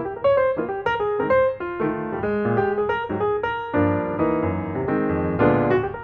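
Instrumental piano music playing a tune of separate notes, turning to fuller chords about four seconds in.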